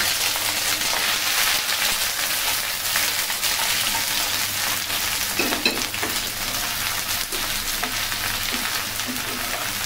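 Chopped okra sizzling as it hits hot mustard oil in a frying pan, pushed around with a wooden spatula. The hiss is dense and even and eases a little toward the end, with a few brief scrapes about halfway through.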